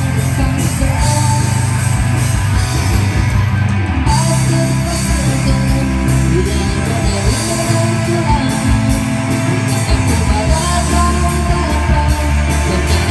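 A live rock band playing loud through a PA: drum kit, electric guitars, bass guitar and keyboard.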